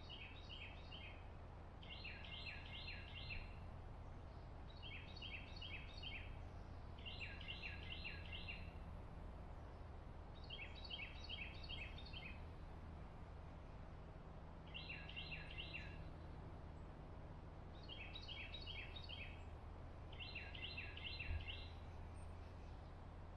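A small songbird singing a short phrase of four or five quick repeated notes every two to four seconds, the phrases alternating between a higher and a lower version, over a steady low background hum. A brief thump near the end.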